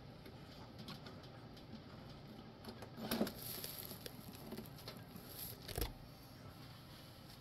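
Faint handling noise from small parts being worked with at a bench: a few light clicks and knocks, the most distinct about three seconds in and just before six seconds.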